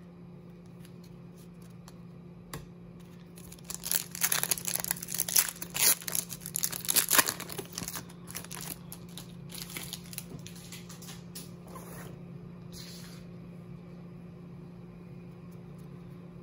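Foil wrapper of an Upper Deck hockey card pack being torn open and crinkled, and the cards pulled out. The crinkling starts about four seconds in, is loudest for the next few seconds, then thins out and stops.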